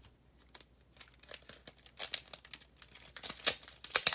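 Clear plastic comic book bag crinkling as it is handled, in irregular crackles that grow thicker about two seconds in and are loudest near the end.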